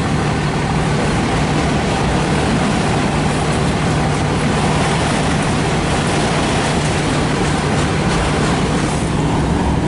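Long freight train of autorack cars rolling past: steady, continuous noise of steel wheels running on the rails, with a constant low hum underneath.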